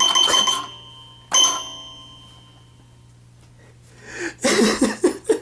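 Two struck, bell-like ringing notes about a second and a half apart, each dying away slowly, from an improvised hand-played percussion instrument. Laughter starts near the end.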